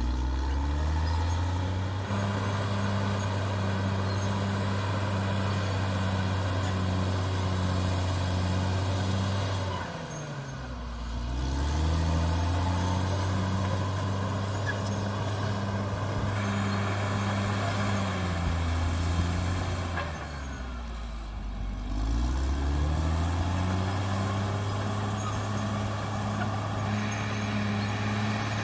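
CAT D6R XL bulldozer's diesel engine running hard and steady. Its engine speed drops twice, about ten seconds in and again about twenty-one seconds in, then climbs back up each time. A faint high whine runs over it.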